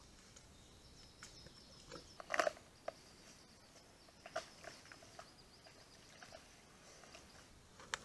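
A bear at a bait barrel making scattered crunches and clicks, the loudest cluster about two and a half seconds in, over a faint steady high whine.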